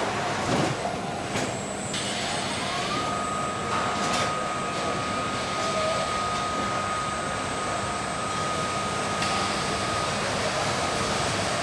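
Car-factory machinery running with a steady hissing noise, and a motor whine that rises about two seconds in, holds one pitch, and stops near the end.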